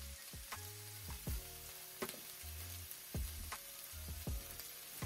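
Sliced bell peppers and onions sizzling in an oiled skillet, with a wooden spoon stirring and knocking against the pan several times, over background music.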